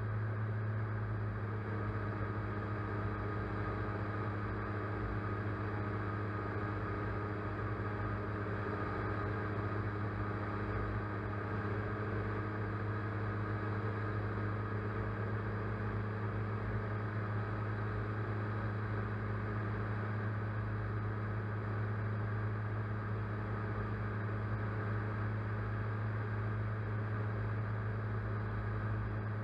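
Steady droning hum of the camera-carrying aircraft's motors and propellers, heard from the onboard camera, with an even low pitch and no change in speed.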